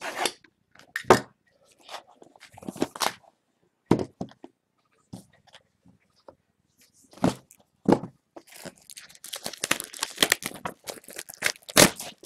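Shrink-wrapped trading card boxes being handled and set down on a table. There are separate cardboard knocks and the crinkle of plastic wrap, with a dense run of crinkling about two thirds of the way in.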